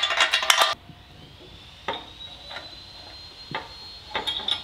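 Metal parts and hardware clattering together as they are handled, followed by a few separate knocks and clicks, with a short cluster near the end.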